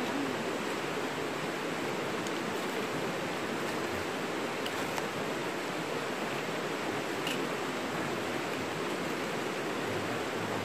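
Steady rush of stream water running over rocks, with a few faint clicks.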